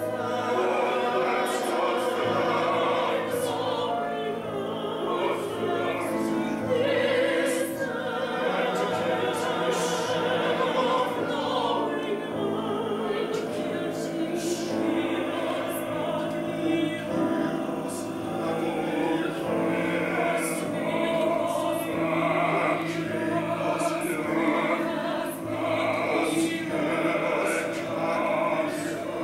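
An ensemble of mixed operatic voices, men and women, singing together with piano accompaniment.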